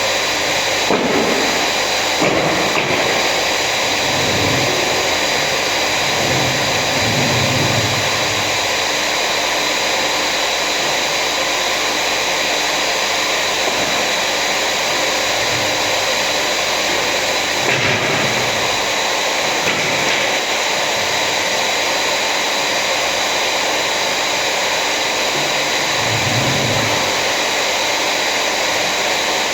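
Electric power tool running without a break, a loud, even motor whine with a rushing noise.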